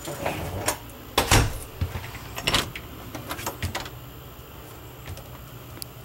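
A handful of knocks, clicks and bumps: handling noise and footsteps as the camera is carried through the RV interior. The loudest thud comes about a second and a half in, another about two and a half seconds in, then it quietens.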